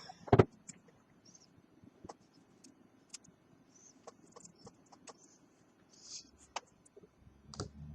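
One knock about half a second in, then scattered light clicks and taps of plastic prying tools and cards working at the edge of a smartphone's glass.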